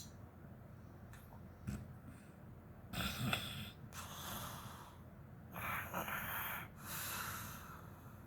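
A woman snoring in her sleep: one noisy breath about three seconds in, then a longer breath in and out over the last three seconds.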